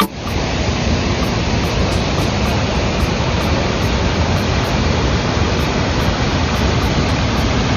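Waterfall's rushing water: a loud, steady, even wash of noise.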